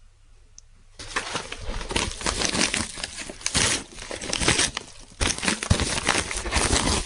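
Packaging being crinkled and torn open by hand as a parcel is unwrapped, a dense crackly rustling that starts about a second in.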